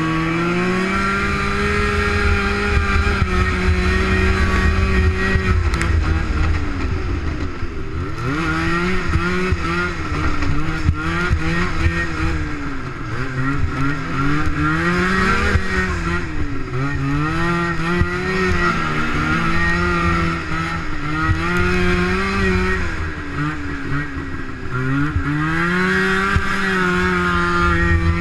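Snowmobile engine at racing throttle off the start: its pitch climbs and holds high for several seconds, then dips and rises again and again as the throttle is let off and opened.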